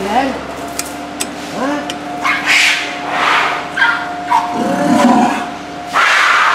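A young Asian elephant calling at close range with a few short squeaky calls that rise and fall in pitch, mixed with several loud breathy blows, over a faint steady hum.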